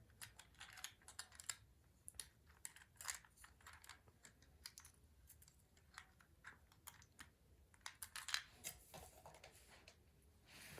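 Faint, irregular clicks and taps of small plastic toy parts being handled and fitted together while a toy's wing pack is reassembled.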